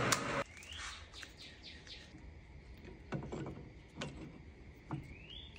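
A steady running noise cuts off abruptly about half a second in. It is followed by a small bird chirping in quick series of short rising notes, early and again near the end, with three soft knocks about a second apart in between.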